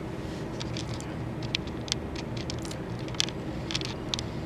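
Steady low room hum with a scattered handful of small, sharp clicks and ticks.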